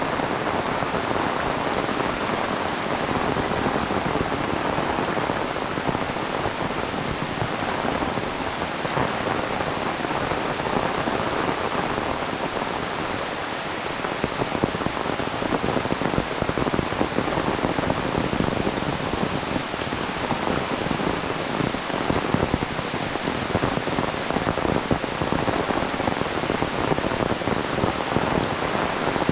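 Heavy rain falling steadily, a dense, even hiss of countless drops, growing a little louder about halfway through.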